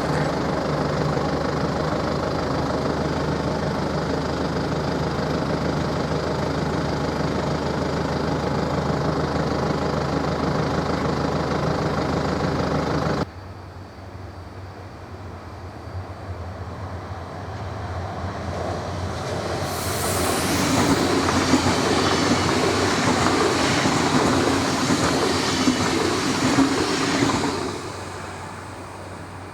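DB class 424 electric S-Bahn train running, with a steady hum of several tones. After an abrupt cut about 13 seconds in, a train is heard approaching, with a brief high hiss as it grows loud, running past for several seconds, then falling away near the end.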